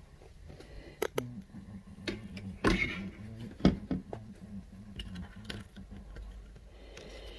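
Handling noise right at the microphone as the phone and fingers move against skin: scattered clicks and short rubs, the loudest about three seconds in and again a second later, over a steady low hum.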